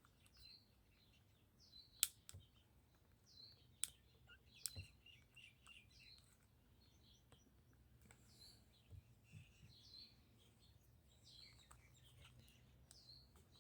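Quiet: faint birds chirping in the background, with a few sharp clicks about two and four seconds in as a plastic clip on the door mirror's wiring is worked loose.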